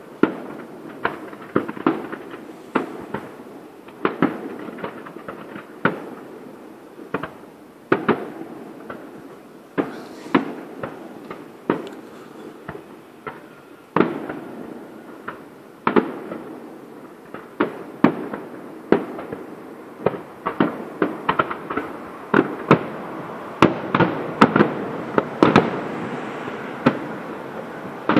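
Fireworks display: aerial shells bursting as a run of sharp bangs, a second or two apart at first, then coming faster and thicker in the last several seconds.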